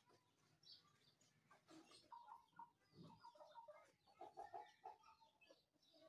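Chickens clucking faintly, a run of short clucks in the middle, coming quickest about four seconds in.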